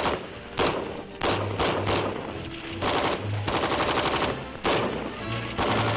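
M14 rifles firing full automatic in repeated bursts of rapid shots, some short and some about a second long, with brief gaps between them.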